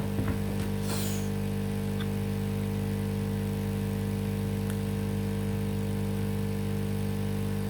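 Steady electrical hum made of several constant tones, with a short hiss about a second in.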